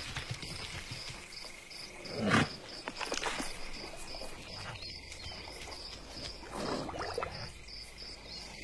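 Savanna ambience: an insect chirping steadily about four times a second over a soft background hiss. A brief louder sound falls in pitch about two seconds in, and a smaller one comes near seven seconds.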